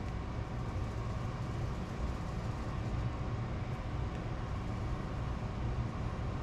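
Monarch 10EE lathe running with a steady, unchanging low hum.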